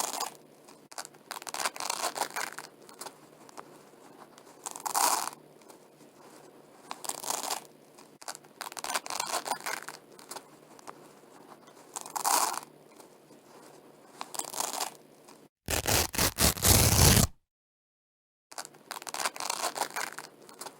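Velcro strips being pulled apart in short rips, one every two to three seconds. About fifteen seconds in comes a louder, deeper burst, then a second or so of dead silence before the ripping resumes.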